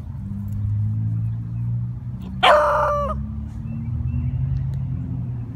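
A single loud animal call, under a second long, held on a steady pitch and dropping away at the end, over a steady low rumble.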